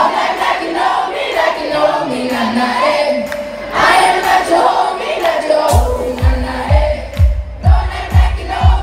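Live pop music heard from within the audience: a female lead vocal over sustained keyboard chords, with crowd voices singing along. About six seconds in, a heavy kick drum and bass beat comes in at about two beats a second.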